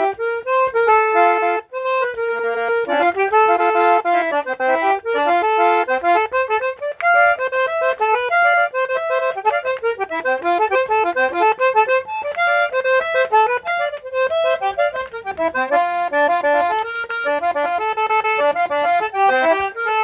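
Eight-bass diatonic button accordion (fole de oito baixos) playing a lively instrumental tune solo, a steady run of quick melody notes.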